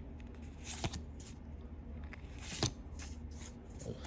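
Pokémon trading cards being handled and slid against one another: two brief sharp swishes about a second in and past halfway, a fainter one near the end, over a steady low hum.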